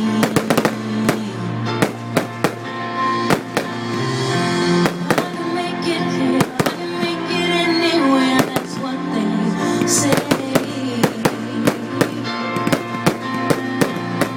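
Fireworks going off in rapid succession, many sharp bangs and crackles a second, over loud music playing along with the show.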